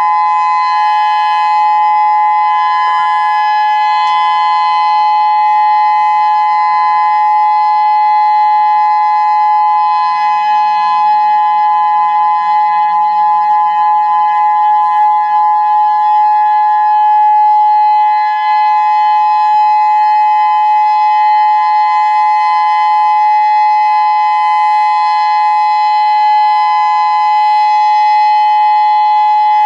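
Federal Signal Modulator 6024 electronic outdoor warning siren sounding a steady, loud two-note tone during a siren test, held without a break.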